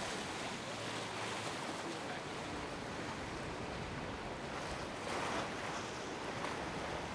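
Harbour ambience: a steady wash of water and wind noise, swelling briefly about five seconds in.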